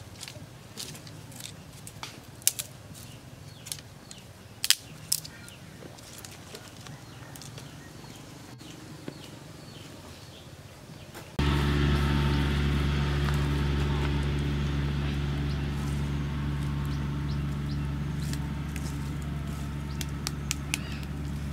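Sharp clicks and cracks of dry sticks being handled and laid into a stone hearth. About eleven seconds in, a steady, low motor-like drone starts abruptly, much louder, and runs on while fading slightly.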